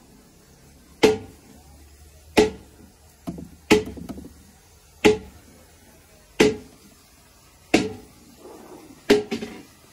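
Hammer blows on metal at a steady pace, about one every 1.3 seconds, each with a short metallic ring, and a few lighter knocks in between.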